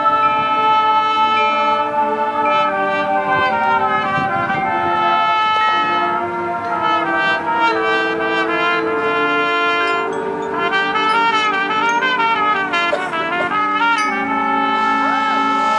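High school band's brass section playing a Latin-themed piece, trumpets and trombones over the full ensemble with quick running melodic lines. Near the end, crowd noise and whistles start up over the music.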